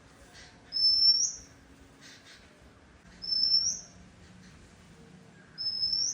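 Oriental magpie-robin singing: three clear whistled notes, each rising at the end, repeated about every two and a half seconds.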